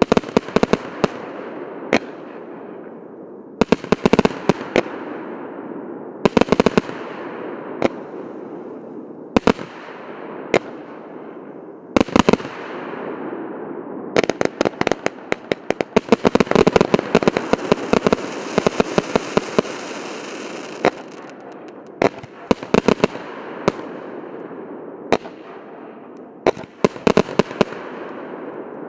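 A 1.2-inch, 186-shot consumer fireworks battery firing: clusters of sharp shots and bursts every couple of seconds, each followed by a fading crackle and hiss of burning stars. A dense run of rapid shots comes in the middle.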